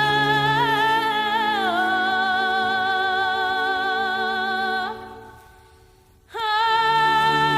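Background music carried by long, held, voice-like high notes with slow glides between pitches. It fades out about five seconds in and comes back abruptly about a second later.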